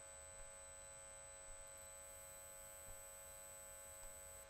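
Near silence: a steady electrical hum, with a few faint clicks of keyboard typing.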